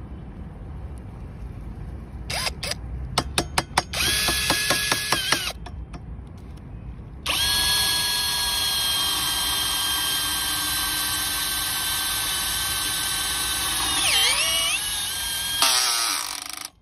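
Cordless drill driver running a screw through metal: first a run of short trigger bursts, then a long steady whine. About fourteen seconds in, the pitch dips sharply and recovers as the self-tapping screw takes the load, and the drill stops just before the end.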